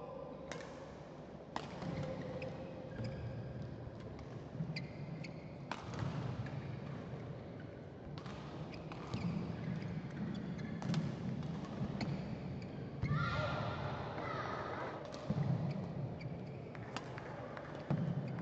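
Badminton rally in a large indoor hall: sharp racket strikes on the shuttlecock roughly once every second or so, with players' footfalls on the court.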